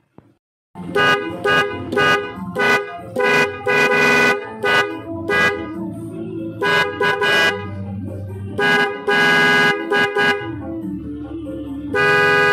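A pair of Denso snail horns, wired through a four-pin relay, honking in an irregular run of short toots with a few longer blasts. They sound together as one loud two-tone chord.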